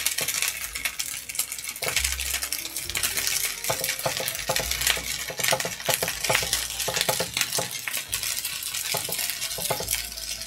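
A metal spoon scraping and clinking against a hot frying pan as bibimbap is stirred together, many quick clicks over a steady sizzle from the hot pan.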